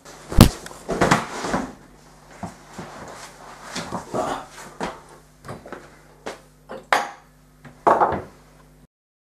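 Kitchen clatter of cupboard doors and crockery being handled: a run of knocks, clinks and rattles, sharpest about half a second in and twice near the end, over a faint steady hum. The sound cuts off abruptly shortly before the end.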